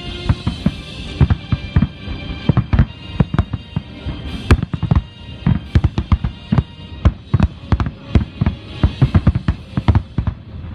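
Fireworks shells bursting in rapid, irregular succession, several loud bangs a second, over background music.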